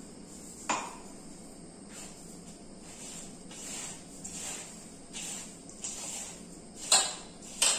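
Dry roasted grated coconut rustling as it is scooped and mixed by hand in a large steel bowl, with a few sharp metallic clinks against the bowl, the loudest near the end.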